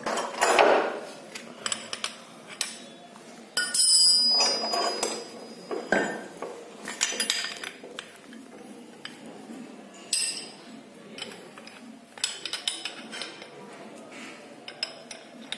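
Irregular metallic clinks, knocks and scrapes of a steel gear puller being fitted to a motorcycle crankshaft and its forcing bolt turned with an open-end spanner, pulling the gear off the crank. The loudest knocks come about four seconds in.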